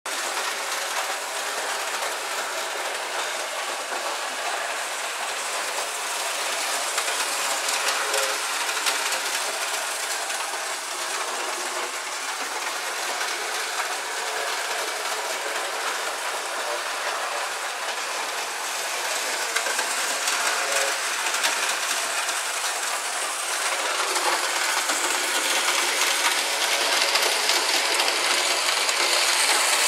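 Märklin HO model train running on its track: a steady clatter of small wheels on the rails, a little louder near the end.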